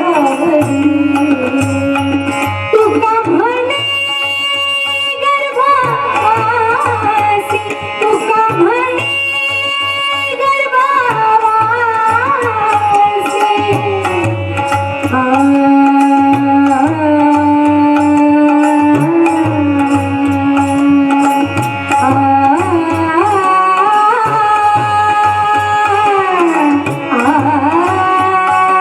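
A woman singing a Marathi devotional abhang, with long held notes and gliding ornaments, over a steady hand-drum rhythm.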